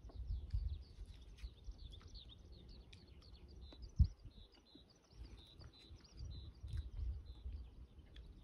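Small birds chirping and twittering throughout, over a low steady rumble, with a single low thump about four seconds in.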